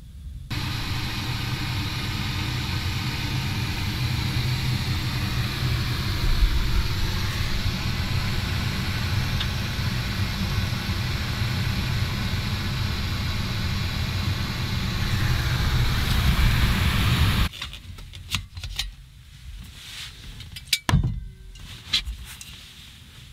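Jetboil backpacking stove burning, a steady rushing noise of the gas flame heating water, shut off suddenly about 17 seconds in. A few light clicks and knocks of handling follow.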